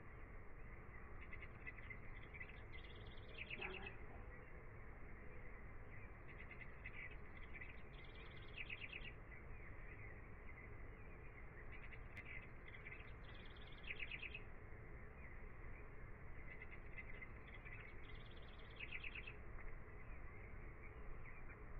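Faint songbird song: the same chirping phrase sung four times, about every five seconds, each ending in a rapid trill, over a steady hiss.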